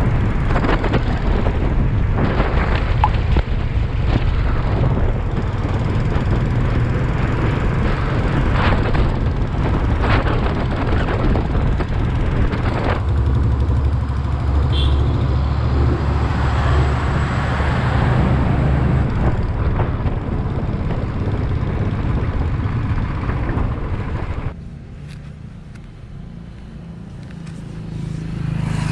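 Single-cylinder motorcycle at road speed, engine running under a steady rush of wind on the microphone. A heavy truck passes about halfway through, adding a deep rumble. Near the end the wind drops away as the bike slows to a near-idle, then it pulls off again.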